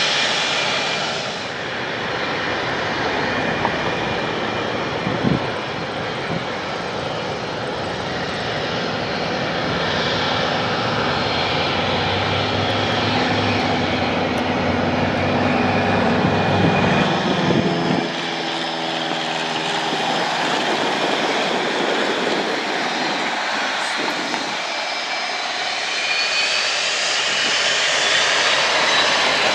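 Single-engine piston propeller airplanes running: one climbing away after takeoff, then a high-wing Cessna flying past with a steady engine drone. A high whine rises in the background near the end.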